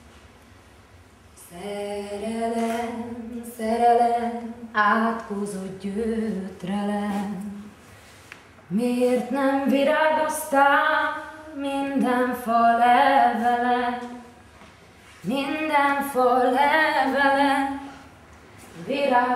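A woman singing unaccompanied in three long phrases of held, wavering notes, with short pauses between them.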